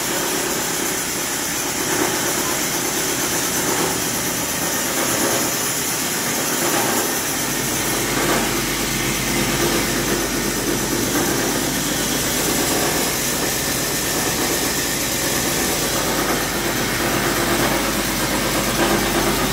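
Copper wire granulator running: a steady mechanical drone with hiss from its motor and cutting chamber as chopped copper granules feed onto the separator tray. A deeper hum joins in about seven seconds in.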